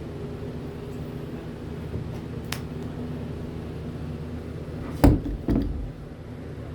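DeWalt D21009 corded drill motor running with a steady hum. Two loud knocks come about five seconds in, and the running then eases off.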